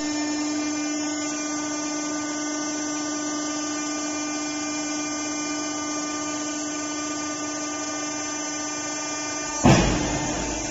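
Large four-column hydraulic press running while drawing a metal steamer pot: a steady pump hum with a constant tone. Near the end comes a sudden loud rush of noise, about a second long, that fades out.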